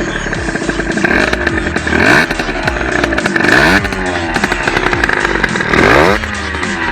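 Rieju MRT 50 Pro SM supermoto's two-stroke engine running and being revved in blips: the pitch climbs and falls back about three times, peaking about two, three and a half and six seconds in.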